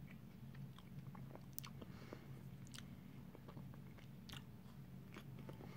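Faint chewing and small mouth clicks from eating an ice cream bar with tapioca pearls, over a steady low hum.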